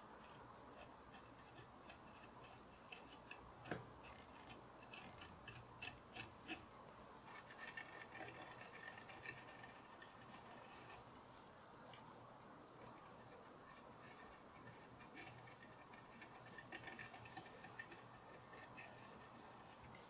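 Hand carving gouge cutting grooves in walnut, faint. It makes small clicks and scrapes as chips come away, with a couple of sharper snaps early on. Two longer stretches of dense scraping follow, from about a third of the way in and again near the end.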